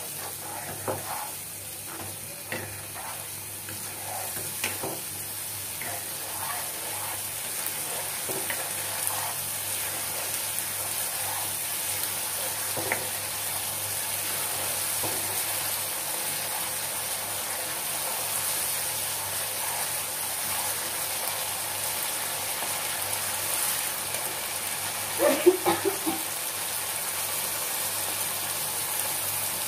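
Spice paste with a little water sizzling in hot oil in a frying pan as it is stirred and scraped with a spatula: a steady hiss with scattered scrapes, the masala being fried down. A short cluster of louder knocks comes near the end.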